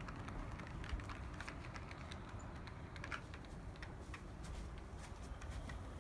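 HO-scale brass model of a JNR EF58 electric locomotive, Tenshodo-made with TA gear and a Copal motor, running on track with scattered light clicks from the wheels over the rails above a steady low rumble.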